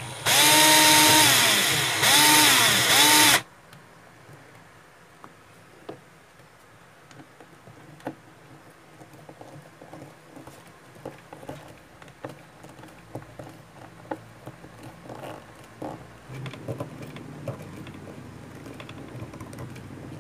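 Electric drill with a twist bit boring a pilot hole into a plywood board, run twice for about three seconds in all, its motor whine rising as it spins up and falling as it stops. Then faint clicks and small knocks of a hand screwdriver turning a screw into the board.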